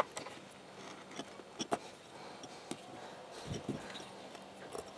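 Scattered small clicks and taps of wires and cable being handled during a rewiring job, with a couple of low thumps about three and a half seconds in.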